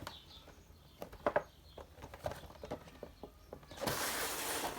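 Handling of boxed Funko Pop figures: scattered light taps and clicks, then a rustle of packaging lasting about a second near the end.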